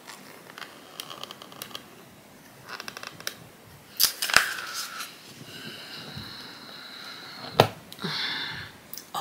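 An eyeshadow palette's cardboard box being handled and opened: rustling and scraping, sharp clicks about four seconds in, and a louder click near the end.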